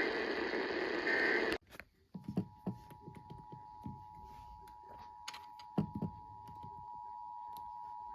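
Emergency Alert System audio: the last end-of-message data bursts, short warbling chirps, come through loud radio static and cut off abruptly about a second and a half in. About two seconds in, a faint steady two-tone EAS attention signal begins and holds, with faint clicks and low murmur beneath it.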